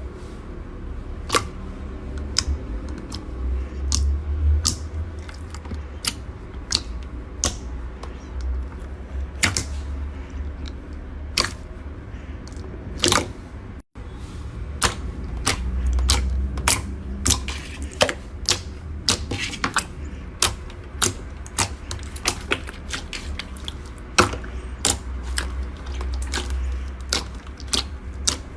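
Slime being squeezed and poked by hand, giving sharp, irregular clicks and pops several times a second over a low handling rumble.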